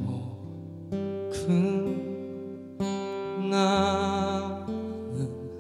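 Music: a ballad accompaniment with strummed acoustic guitar and sustained notes, changing chords about every second or so.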